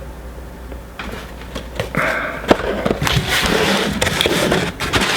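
Rustling and crinkling of a boxed Funko Pop's cardboard and plastic packaging being handled, with scattered clicks and taps, getting louder about two seconds in.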